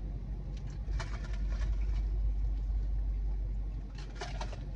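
Steady low hum of a car running, heard inside the cabin, with a few faint short sounds of eating and sipping through a straw about a second in and near the end.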